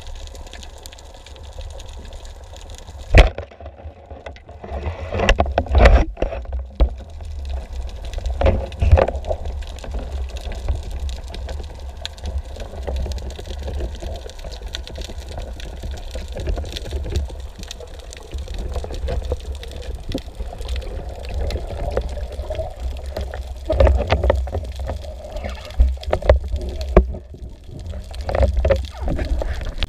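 Underwater sound through an action camera's housing: a steady low rumble of water and bubbling. About three seconds in there is one sharp crack as the spear is shot into a cuttlefish, followed by scattered knocks and clicks as the speared cuttlefish is handled on the shaft.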